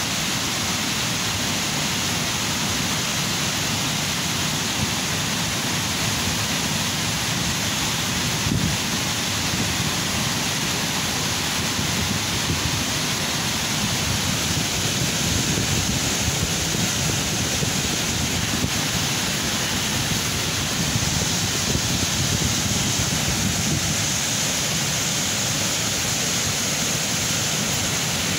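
Steady rush of river water tumbling over rocks into a pool, an even roar with no breaks.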